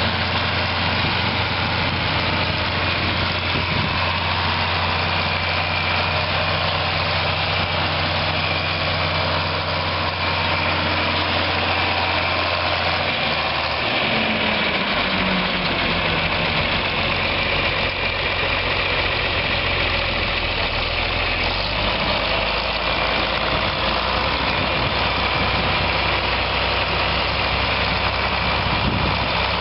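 A 1965 John Deere 4020's 6.6-litre six-cylinder diesel engine runs steadily as the tractor drives with a rotary mower hitched on. About halfway through, the engine note drops to a lower, slower speed.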